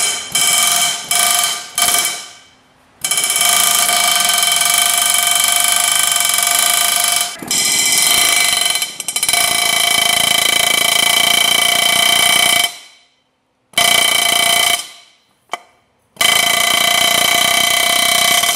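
Chicago Pneumatic CP717 air hammer hammering a chisel against a stuck tractor clutch assembly, the struck metal ringing in several steady pitches. A few short trigger pulls come first, then a long run of hammering of about ten seconds, a short burst, and a final run near the end.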